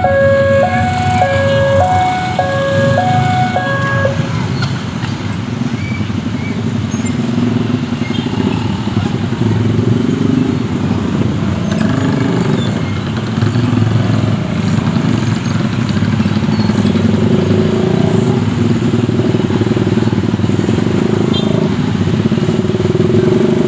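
Railway level-crossing warning alarm sounding two alternating electronic tones, a little over half a second each, and stopping about four seconds in. A steady low rumble of vehicles runs throughout.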